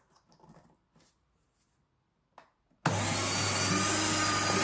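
Electric paper shredder: a quiet stretch with a few light clicks of handling, then the motor starts abruptly about three seconds in and runs steadily with a low hum as something is fed through.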